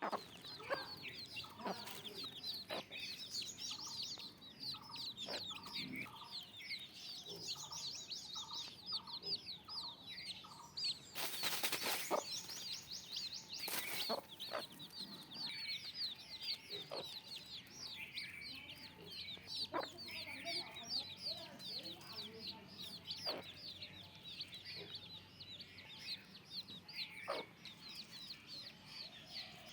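Desi chickens clucking among a steady stream of rapid high-pitched peeps and chirps, with scattered sharp clicks. A short noisy rush about 11 seconds in and again near 14 seconds.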